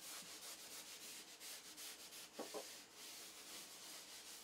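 A chalkboard eraser wiping chalk off a blackboard in repeated strokes, a faint dry rubbing hiss.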